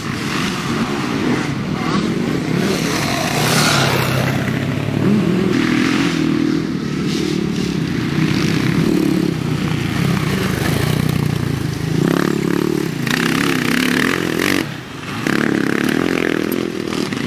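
Off-road dirt bike engines running and revving around a sandy track, the engine note rising and falling as the riders open and close the throttle. One bike comes by close near the end, after a brief drop in the sound just before it.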